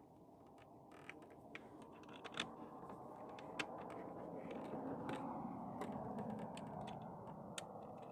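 Scattered light clicks and taps of tools and hardware being handled, over a steady low rush that swells through the middle and fades near the end.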